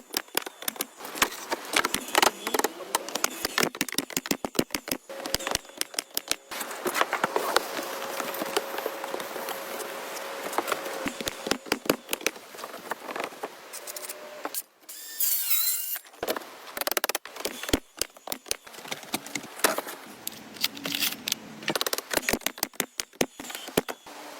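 Woodworking tool sounds: many rapid, irregular clicks and knocks, with a steadier scraping noise in the middle and a brief high hiss about two-thirds of the way through.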